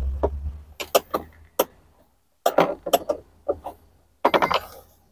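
Irregular metallic clicks and clinks of a curved gooseneck wrench being worked on a hidden dashboard mounting screw, in short clusters broken by two brief pauses.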